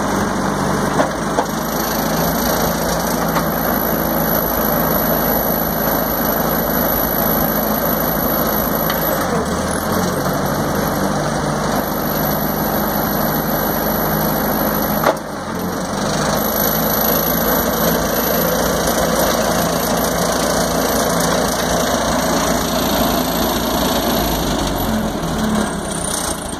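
Ford Golden Jubilee tractor's four-cylinder gasoline engine running steadily, heard from the driver's seat. There is a brief click and dropout about fifteen seconds in.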